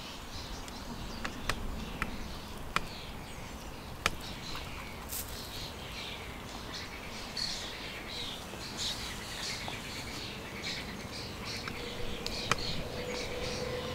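Mute swan cygnets peeping: many short, high chirps that grow busier about a third of the way in. A few sharp clicks stand out above them.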